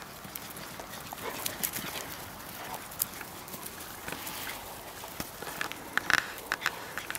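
Puppies scampering and playing on grass, with scattered scuffles and light clicks, and a short high puppy yip about six seconds in.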